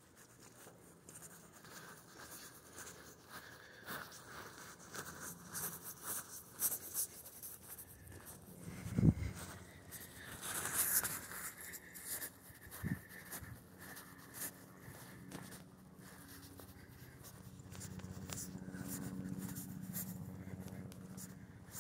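Faint scratching and rustling from a handheld phone's microphone being handled, with scattered small clicks. Two dull thumps come about nine and thirteen seconds in, and a low rumble builds near the end.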